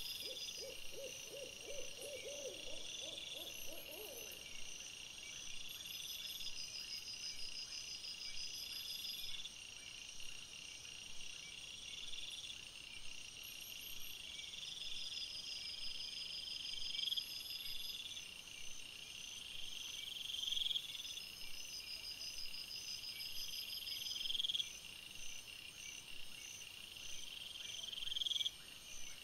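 Night insects chirring steadily in a repeating pulse throughout, with an owl hooting in a quavering run of notes during the first four seconds.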